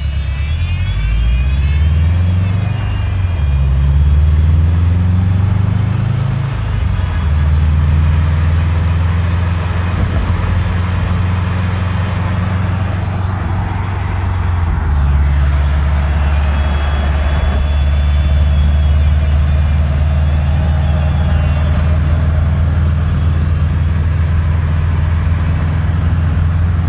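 Steady low rumble of cars driving on a road, with a faint high whine from a passing car that slides in pitch in the first few seconds and comes back around the middle, a noise taken for power steering whine.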